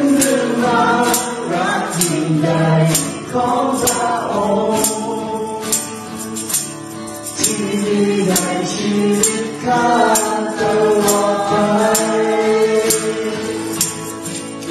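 Worship song sung by several voices together to strummed acoustic guitars, with a tambourine struck on the beat about twice a second.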